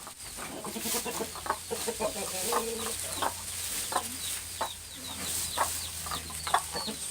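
American Buckeye chickens making their low growling calls mixed with clucks, many short calls overlapping from several birds at once.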